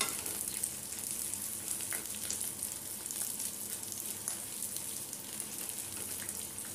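Large onion pieces sizzling in hot mustard oil in a non-stick kadhai, a steady high hiss with small crackles, while a wooden spatula stirs them.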